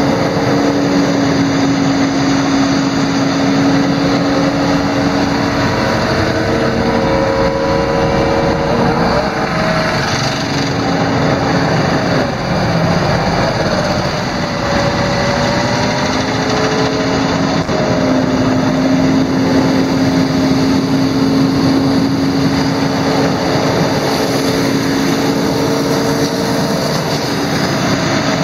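Kaiser Premier CV100 vacuum excavation truck running under load: its engine and positive-displacement blower make a loud steady drone, and a hum in it shifts slightly in pitch now and then. A strong hiss runs under it, from the high-pressure water wand spraying.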